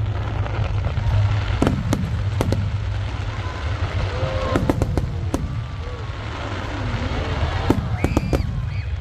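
Aerial fireworks going off: a continuous low rumble of bursting shells, with sharp bangs every second or so and several in quick succession near the end.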